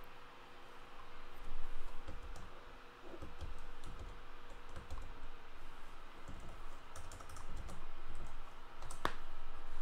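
Hands on a computer keyboard and desk: irregular soft taps and thumps, with one sharp click about nine seconds in.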